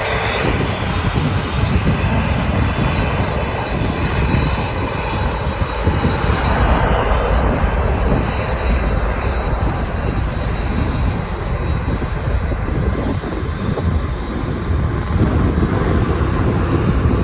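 Airbus A380-861's four Engine Alliance GP7200 turbofans running at taxi power: a steady jet-engine rush with no break.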